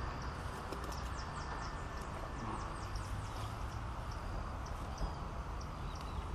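Outdoor riverside ambience: a steady rush with a low rumble, under many short, high, falling chirps of small birds repeating throughout.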